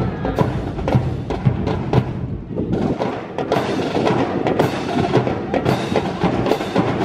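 Music with sharp percussive clacks in a quick, uneven rhythm, accompanying a rifle drill team's fancy drill; the clacks fit drill rifles being slapped and struck in unison.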